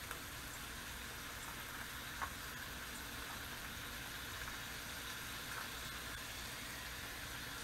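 Bacon sizzling steadily on a cast iron griddle over a propane camp stove, with a single light click about two seconds in.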